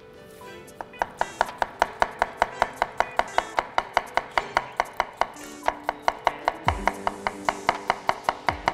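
Knife chopping rapidly and evenly on a wooden cutting board, about five strokes a second, starting about a second in, as a cucumber is scored with fine cuts that don't go right through.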